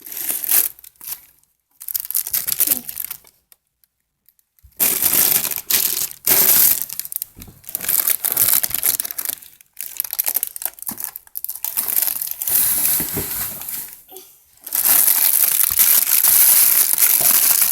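Packaging crinkling and rustling as it is handled and pulled open, in irregular stretches that grow louder and nearly continuous toward the end.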